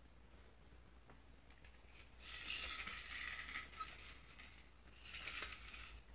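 Small plastic baby toy rattling as it is shaken, in two bursts: a longer one about two seconds in and a shorter one about five seconds in.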